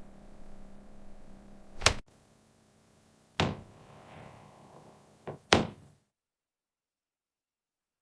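Four separate sharp knocks or thunks over a low hum: one about two seconds in, after which the hum stops, one about three and a half seconds in, and a quick pair about five and a half seconds in. The sound then cuts off to complete silence.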